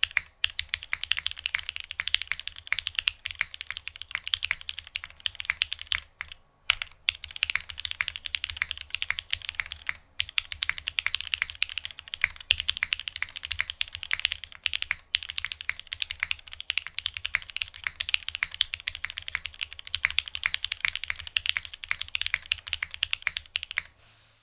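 Continuous typing on a Geonworks F1-8X mechanical keyboard with an aluminum plate and retooled Cherry MX Black linear switches fitted with Kailh black stems, lubed with 205g0 and filmed, under Hammerworks CRP keycaps. It is a fast, even stream of keystrokes with a few short pauses, and it stops just before the end.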